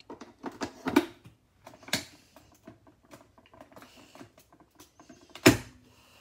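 Light clicks and taps of hands working a Nescafé Dolce Gusto capsule coffee machine and its cup, with one sharp knock about five and a half seconds in.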